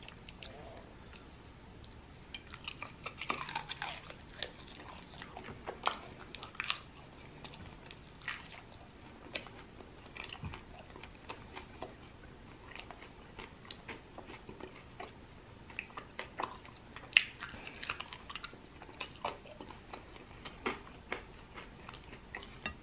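Close-miked chewing and biting on sauced fried chicken wings: scattered wet mouth smacks and small crunches, coming and going throughout.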